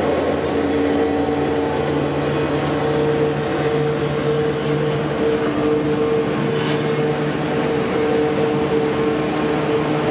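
Diesel-electric freight locomotive running with a steady, even drone as it passes, with the container wagons behind it rolling over the level crossing.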